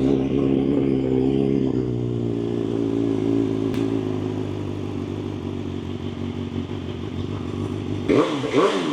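BMW S1000XR inline-four idling steadily through an Akrapovic full titanium exhaust with the genuine BMW dB-eater baffle fitted in the end can, easing slightly in loudness. Near the end the sound turns louder and uneven for about a second.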